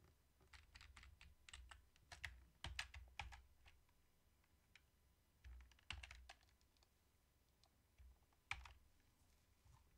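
Computer keyboard keys clicking faintly and irregularly, in short runs with pauses between.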